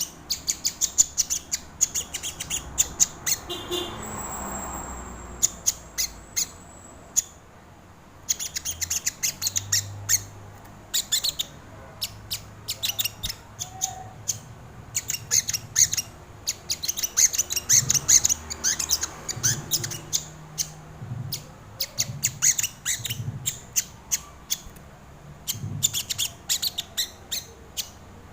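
Sogon sunbird calling: rapid runs of sharp, high-pitched chips and twitters lasting several seconds each, broken by short pauses, with a brief thin whistle about four seconds in. This is the bird's lively 'gacor' call used as a lure or training recording.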